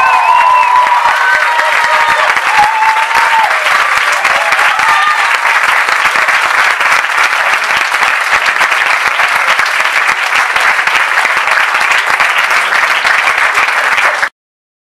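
Audience applauding and cheering at the end of a live stage act, with shouted cheers over the clapping in the first few seconds; the applause cuts off abruptly near the end.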